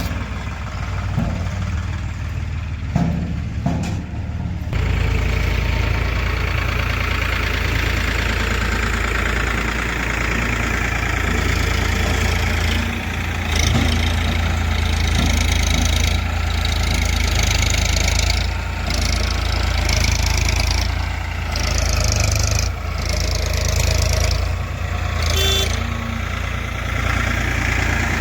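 Heavy diesel engine idling, then running harder from about five seconds in, louder and fuller, its level rising and falling.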